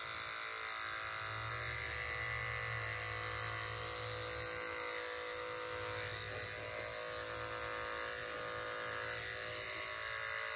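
Corded electric dog grooming clipper running with a steady hum as it trims the hair on the back of a Standard Schnauzer's ear. It cuts off at the very end.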